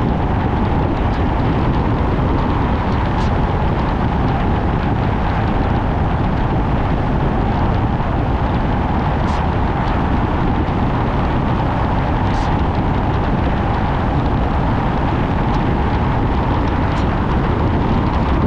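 Car driving along a road: steady engine and tyre noise, with a few faint ticks scattered through it.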